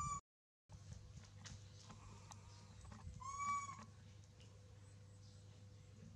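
Baby monkey calling: a short, clear, slightly arched coo about three seconds in, with the tail of another call cut off right at the start. A steady low hum runs underneath.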